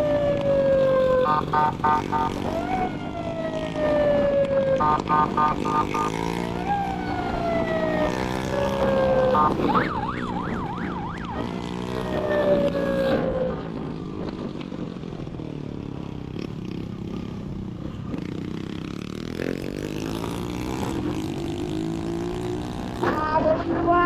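Electronic police siren fitted to a motorcycle, sounding a falling wail repeated every few seconds with two short bursts of rapid beeps. About ten seconds in it switches to a fast warbling yelp, then stops, leaving the motorcycle engine running and rising and falling with the throttle, with a brief siren chirp near the end.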